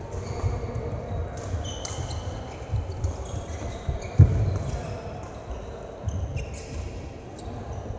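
Repeated dull thuds of a ball game, with one loud thud about four seconds in and a few short high squeaks like shoes on a court floor.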